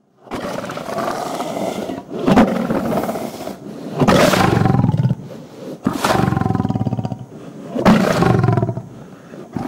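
Lion roaring: a quieter call, then a series of four loud, deep roars about two seconds apart, each breaking into fast pulsing grunts.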